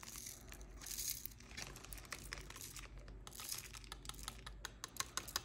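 Faint, rapid clicking and rustling: tiny resin diamond-painting drills rattling in a 3D-printed plastic tray plate as it is tilted and shaken, with light plastic crinkling.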